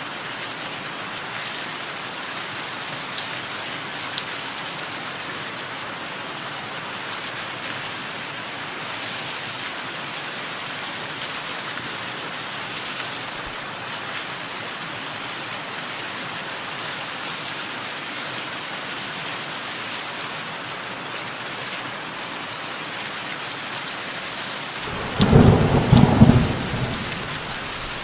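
Steady rain with birds chirping in short, high calls every second or two. Near the end, a loud clap of thunder rumbles for about two seconds and is the loudest sound.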